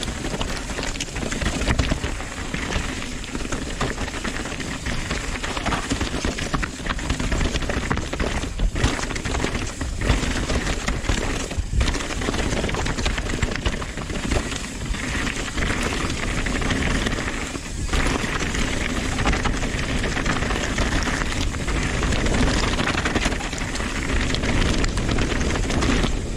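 Nukeproof Dissent 290RS downhill mountain bike clattering over rough, rocky, loose trail at speed. The tyres crunch over rock, dirt and leaves, with constant rattling knocks from the bike.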